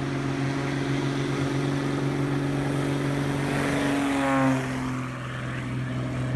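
Propeller engine of a PZL-104 Wilga bush plane at full takeoff power, passing close by. The engine pitch drops about four and a half seconds in as the plane goes past, then the sound eases off a little as it climbs away.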